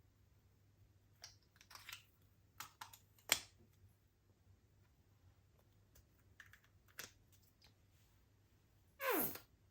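Slime being kneaded and stretched by hand, giving scattered small sticky clicks and pops, then a louder squelch that falls in pitch near the end.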